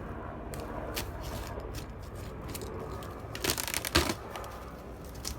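Knocks and clatter of objects being handled, with a sharp knock about four seconds in, over a faint low rumble from a helicopter passing overhead.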